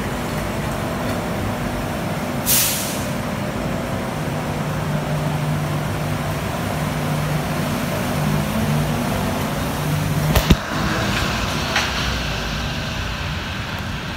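Bombardier Innovia APM 100 rubber-tyred people mover at the platform: a short hiss about two and a half seconds in as the doors shut, then the train's steady low hum. A sharp click comes about ten seconds in, followed by the rolling noise of the train running along the guideway.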